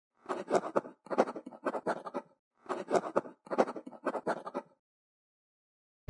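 A pen scribbling on paper in two runs of quick scratchy strokes, each about two seconds long.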